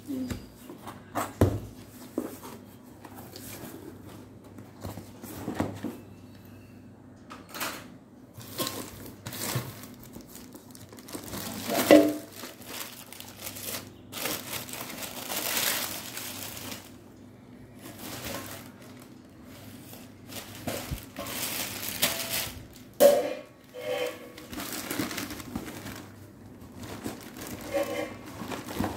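A blade slitting the packing tape of a cardboard box and the flaps being pulled open, then shredded paper and plastic wrap rustling and crinkling around a metal pot, with scattered sharp knocks and scrapes as it is handled.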